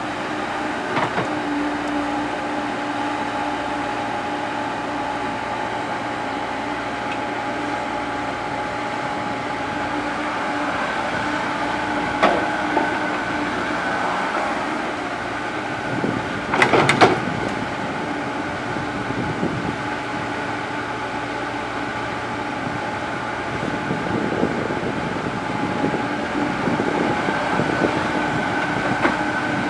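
Komatsu PC70 hydraulic excavator working, its diesel engine and hydraulics running at a steady drone with a held whine. A single sharp metallic clank comes about twelve seconds in and a quick burst of clanks about seventeen seconds in.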